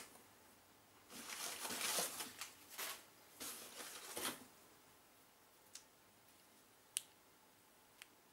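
Hand rummaging in an open cardboard box, rustling the box and wrapped packets for a few seconds, followed by three short, sharp clicks spaced about a second apart.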